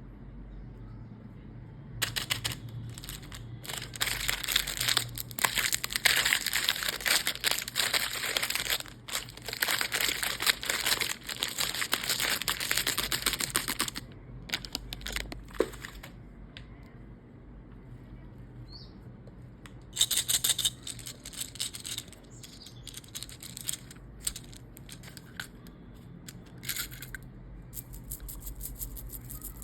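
Plastic candy wrapper crinkling and tearing as it is opened by hand: a long stretch of dense crackling, a shorter burst later, and scattered small rustles in between.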